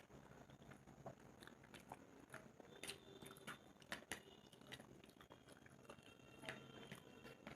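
Close-miked chewing of Maggi instant noodles and fried egg: irregular wet mouth clicks and smacks, a few a second.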